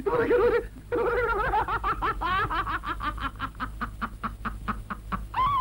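A cartoon character snickering and giggling: a drawn-out vocal sound, then a quick run of short, pitched laughs, ending in a swooping cry.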